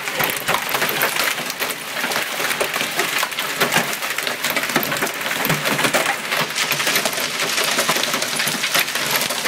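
Heavy hail pelting down: a dense, continuous clatter of hailstones striking the driveway and surroundings.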